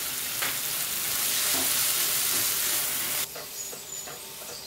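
Onions, capsicum and chicken pieces sizzling in a hot nonstick frying pan with a strong hiss that drops sharply about three seconds in. After that a wooden spatula scrapes and knocks in the pan as the stuffing is stirred.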